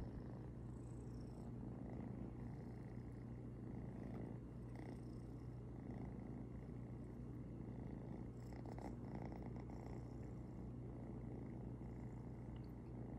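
Ginger kitten purring steadily as it drifts off to sleep, a continuous low rumble.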